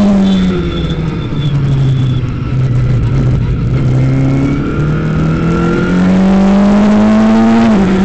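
Formula Ford racing car's engine heard from the cockpit: the revs fall as the car slows into a corner, stay low through the bend, then climb steadily under full power out of it, with a quick upshift near the end.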